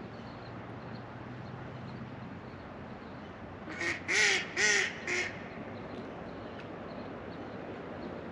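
A duck quacks four times in quick succession about four seconds in, over the steady rush of flowing river water.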